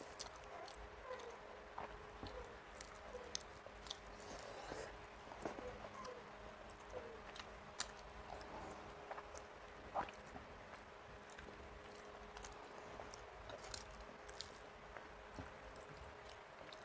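Faint chewing of mouthfuls of rice and curry eaten by hand, with small wet clicks and smacks scattered through it.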